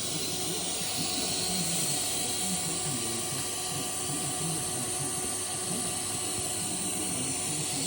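TIG welding arc on a steel pipe: a steady, even hiss.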